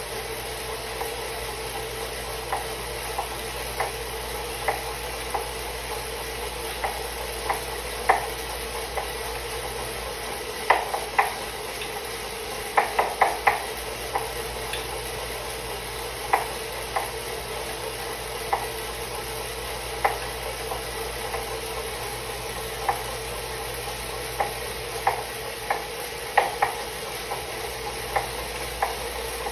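Elite Suito-T direct-drive bike trainer running with a steady whir, broken by sharp knocks about every half second to second at an uneven rhythm, a few of them louder and bunched together near the middle. The knocking is the unwanted noise the trainer is making.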